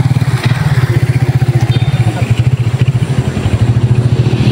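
A small engine running with a rapid, even low putter.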